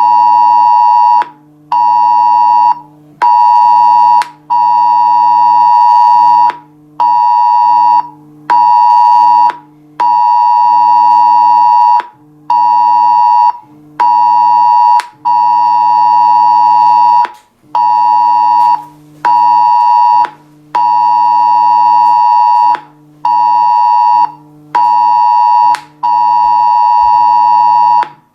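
Mobile phone's Cell Broadcast emergency alert tone during a test alarm: a loud two-pitch attention signal sounding in repeated pulses of one to two seconds, broken by short gaps.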